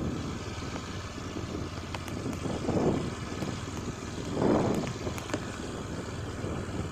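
Wind buffeting the microphone in a steady rumble, swelling in two gusts about three and four and a half seconds in.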